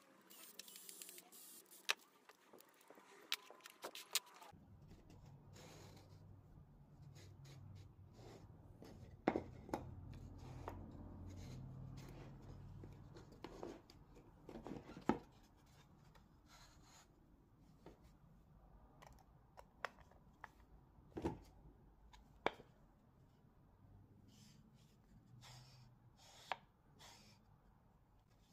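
Faint clicks, taps and knocks of MDF jig parts, screws and hand tools being handled and set down on a workbench, a few of them sharp. Near the start a cordless drill-driver whirs briefly, driving a screw into the MDF.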